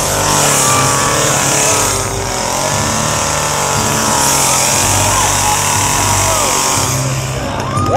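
Chainsaw engine running steadily, its speed rising and falling.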